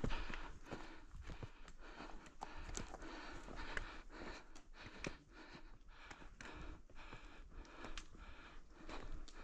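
Footsteps on a rocky dirt trail: irregular scuffs and clicks of boots on loose stones, over a low steady rumble.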